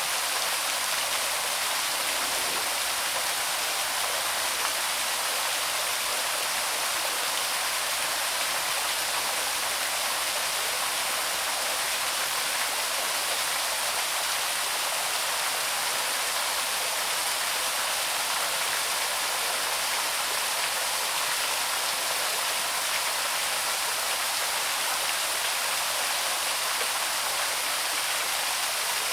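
Waterfall: water falling in a steady, unchanging rush.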